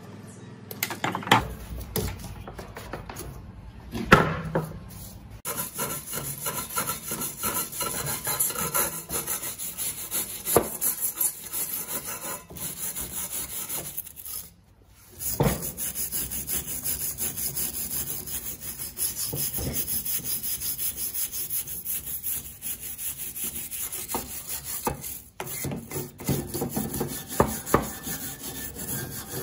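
Rapid back-and-forth scraping and rubbing strokes on rusty metal, as in sanding or filing parts by hand, with a few sharp knocks in between.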